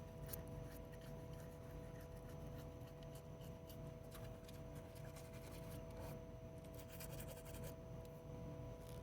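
Toothbrush scrubbing teeth: faint, rapid scratchy brushing strokes, over a steady low hum.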